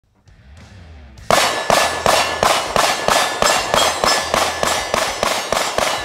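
A rapid, even series of loud metallic clangs, about three a second, starting a little over a second in after some faint ringing.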